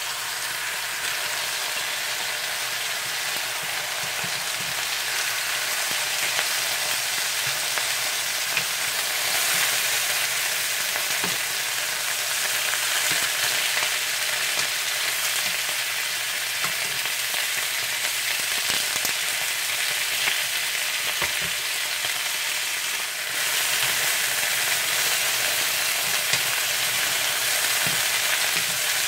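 Chicken breasts sizzling steadily as they sear in hot olive oil in a frying pan, with now and then a light tap of a utensil turning the pieces.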